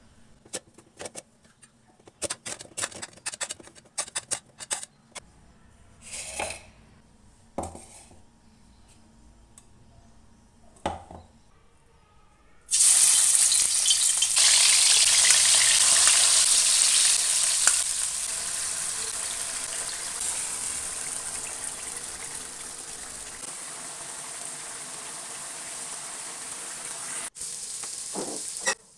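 Marinated tuna pieces frying in hot oil in a wok: a loud sizzle starts suddenly about halfway through and settles to a lower, steady sizzle after a few seconds. Before it, a run of short clicks and knocks as chopped onion, garlic, tomato and chillies are tipped into a plastic chopper jar.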